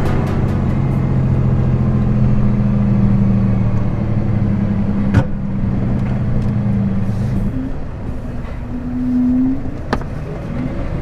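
Diesel engine of a car-transporter truck running steadily while driving, heard from the cab; its note changes and rises about seven and a half seconds in. Two sharp clicks, about five and ten seconds in.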